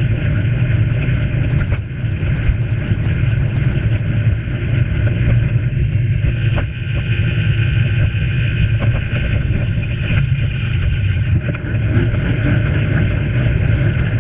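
Steady loud rumble of wind and tyre-on-tarmac vibration picked up by a bicycle-mounted camera while riding along a paved path, with light ticking at the start and near the end.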